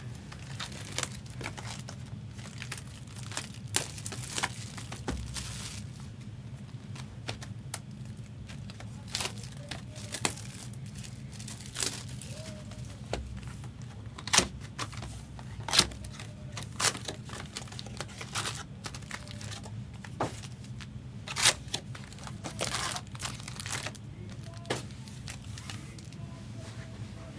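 Trading card pack wrappers being torn open and crinkled while the cards are handled: an irregular scatter of sharp crinkles, tears and clicks over a low steady hum.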